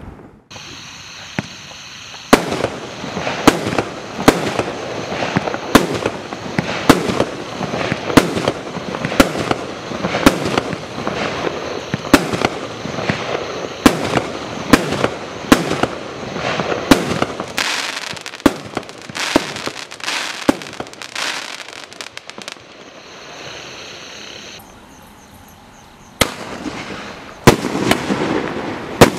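Consumer firework barrage cakes firing: a string of sharp shots from the tubes, about one to two a second, with crackle between them. The shots begin about two seconds in and thin out past the middle, leaving a quieter stretch of crackle and hiss. Loud shots start again near the end as the next cake lights.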